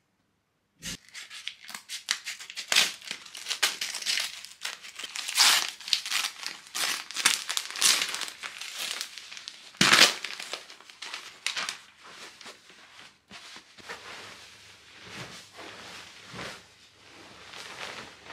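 Brown paper wrapping and white paper crumpled and pulled open by hand: dense crinkling and tearing starting about a second in, with one sharper, louder crackle about ten seconds in, then a softer rustle over the last few seconds.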